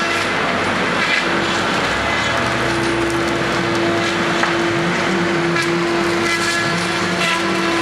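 Steady mechanical running noise, loud and unbroken, with a constant hum.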